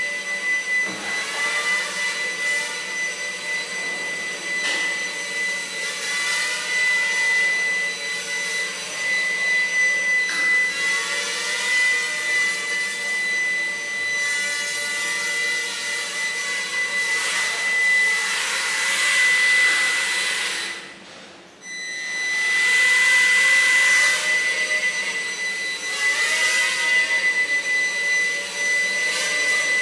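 Walkera QR Spacewalker toy octocopter's eight small electric motors and rotors whining, the pitch wavering up and down with throttle. About two-thirds of the way through, the sound drops away briefly, then comes straight back.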